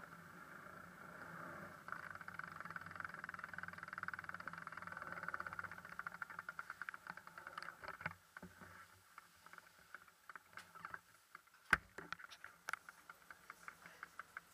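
Bicycle freewheel ticking as a loaded touring bike coasts, the ticks coming quickly for the first several seconds, then slowing to a few ticks a second as the bike is wheeled along by hand. One sharp knock about twelve seconds in.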